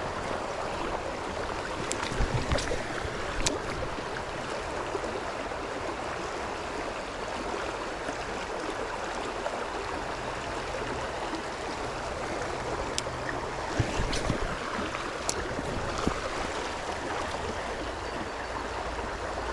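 Steady rushing of a flowing river, with a few brief sharp clicks about two seconds in, near three and a half seconds, and again around the middle.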